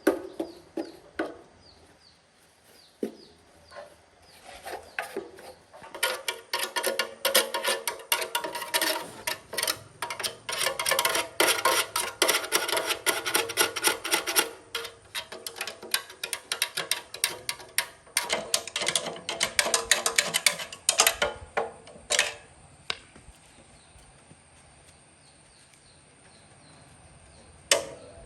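Quick clicks and scrapes of hand work on small metal parts. They are sparse at first, come in a dense run from about six seconds to twenty-one seconds in, then thin out to a few scattered clicks.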